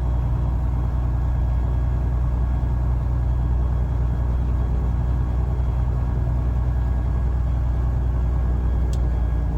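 Piper Lance's six-cylinder Lycoming piston engine and propeller running at a steady speed, a constant low drone with no change in pitch or level.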